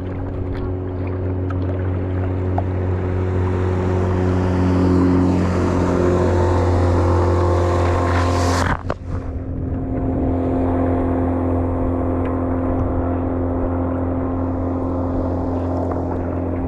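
Motorboat engine running steadily, growing louder over the first half, with a sudden break about nine seconds in before it carries on.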